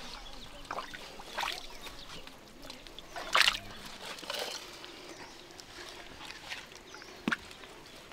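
Hands and feet working in a muddy, water-filled pit: scattered sloshing and splashing of mud and water, the loudest splash about three and a half seconds in, and a short sharp knock near the end.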